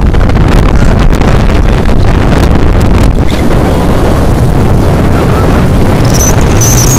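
Heavy wind buffeting the microphone on a moving motorcycle, with the rumble of the ride underneath. A faint high whine comes in near the end.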